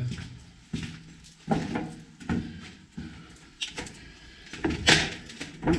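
Footsteps of a person walking at a steady pace, a step roughly every three-quarters of a second, with a sharper knock or scuff near the end.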